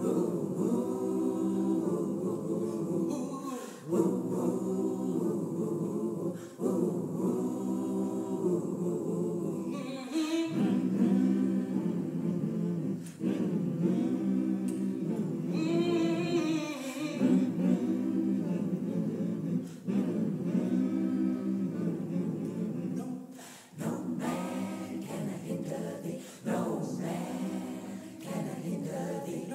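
Gospel choir of women's and men's voices singing a spiritual a cappella, in sung phrases of a few seconds each with brief breaks for breath between.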